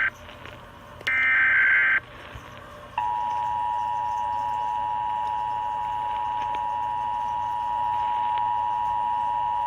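Emergency Alert System SAME header received over the radio: a burst of about a second of shrill warbling digital data tones, then after a short pause the EAS two-tone attention signal, a steady dual-tone alarm that holds on through the end.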